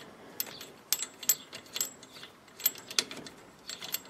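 Wrench clicking and ticking in quick, irregular metal clicks as it turns a 10 mm bolt into a bracket.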